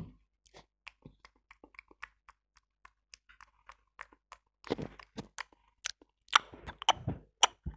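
Lavalier microphone handling noise from fingers fidgeting with the clip-on mic: a run of small scattered clicks, then louder rubbing and knocks from about halfway through.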